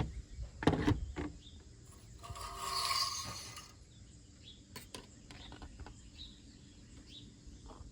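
Metal oil dipstick on a 5.7 HEMI V8 being pulled out of and slid back into its tube: a few sharp clicks, then a scraping rattle of about a second and a half, and a few light ticks.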